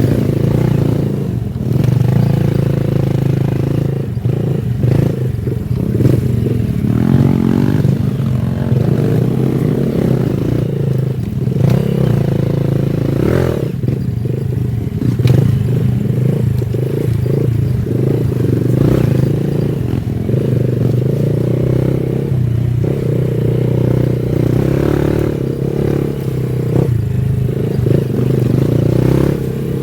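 Honda Wave 110i's small single-cylinder four-stroke engine running steadily while being ridden, with rumbling road and wind noise and a few short knocks or rattles along the way.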